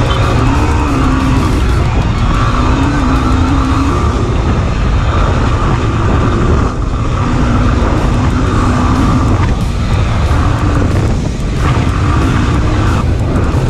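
Yamaha WR250R's single-cylinder four-stroke engine running hard as the dirt bike rides a sandy track, revs rising and falling with the throttle, with a brief dip about seven seconds in. Heavy wind noise on the camera microphone underneath.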